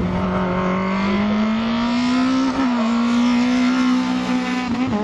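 Peugeot 306 kit-car's engine under hard acceleration, its pitch rising steadily for about two and a half seconds. It then dips briefly, as at a gear change, and holds high revs, with another short dip near the end.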